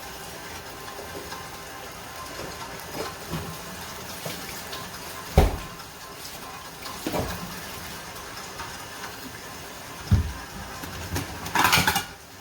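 Steady hiss of a pot of chicken cooking in its own juices and oil, with a few dull knocks of cookware and a short louder rush near the end.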